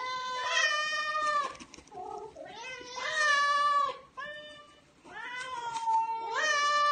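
Domestic cat meowing in three long, drawn-out calls, each lasting about one and a half seconds with a short pause between them.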